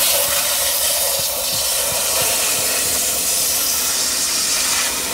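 Pressurised water spraying from a hose whose hose lock fitting has no shut-off, pulled apart so the water shoots out, hissing steadily as it splashes onto a teak deck and fibreglass.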